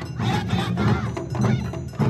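Live Japanese festival dance music played by a taiko drum ensemble: drums beating a driving rhythm, with clinking metal percussion over it.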